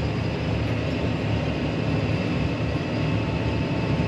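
Tractor's diesel engine running steadily under load while pulling a corn planter, a constant low drone.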